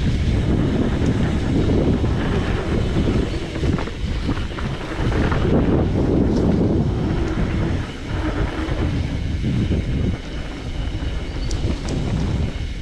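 Mountain bike riding over rough trail: a steady rattling rumble from the tyres and frame, with wind buffeting the microphone.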